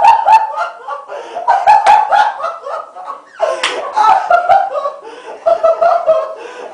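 People laughing hard in high-pitched fits, with several sharp slaps or smacks mixed in.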